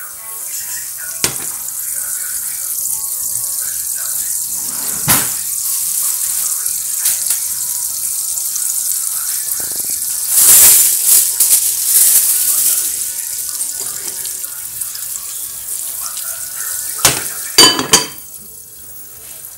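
Hot oil sizzling with corn kernels in a frying pan on a gas burner: a steady high hiss with a few sharp clicks and a louder stretch of sizzling about halfway through. Near the end come two or three sharp clinks as a glass lid is set on the pan.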